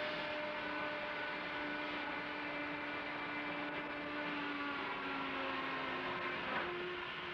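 Steam mill machinery running: a steady pitched whine with several tones over a hiss. The pitch sags slowly, then climbs back up near the end, with a brief knock.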